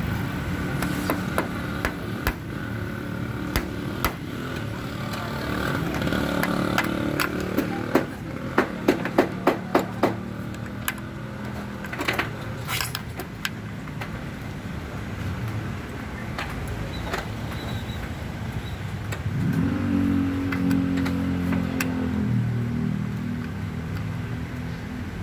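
Sharp metal clicks and taps, a run of about six at roughly two a second, from a screwdriver and a roof-rack mounting bracket being worked in a car's roof channel. Under them runs the steady hum of a vehicle engine, with a stronger engine note coming in near the end.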